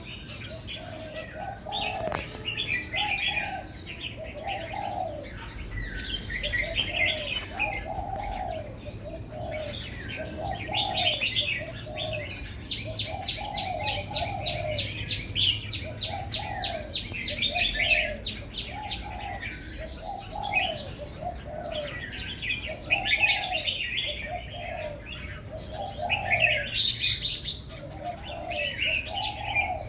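Birds singing: a dove cooing over and over, about one coo a second, under higher chirps and calls from smaller birds, with a fast trill near the middle.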